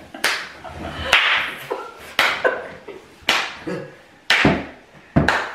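Six sharp open-hand slaps about a second apart, each a crisp smack with a short noisy fade.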